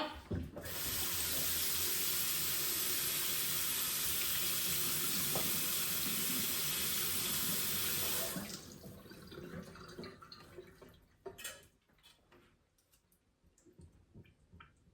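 Kitchen tap running in a steady stream for about eight seconds, then turned off abruptly; a few light clicks and a single knock follow.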